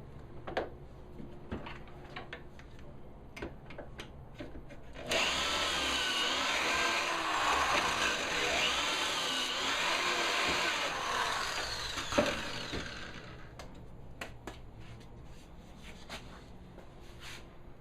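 Power drill running for about eight seconds, its pitch wavering up and down, used to join the box with pocket screws. Light knocks and clicks come before and after it, with one sharper knock near the end of the drilling.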